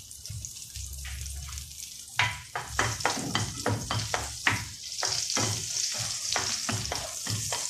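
Butter and olive oil sizzling in a frying pan, the sizzle growing louder about five seconds in. From about two seconds in, a spatula stirs them with quick scraping, tapping strokes against the pan.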